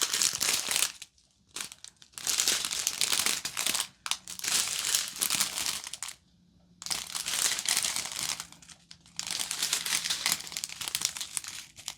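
Small plastic diamond-painting drill bags crinkling as they are handled and sorted, in several stretches broken by short pauses.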